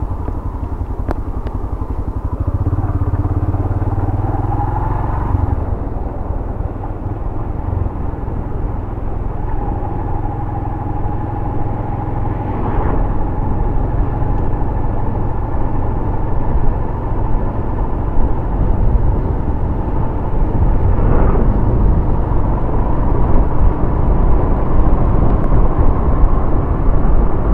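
Yamaha YBR 125G's single-cylinder four-stroke engine running as the motorcycle is ridden, heard through a helmet microphone along with a low wind rumble. The engine note holds mostly steady, with a small rise in pitch about four seconds in, and the whole sound grows louder in the second half.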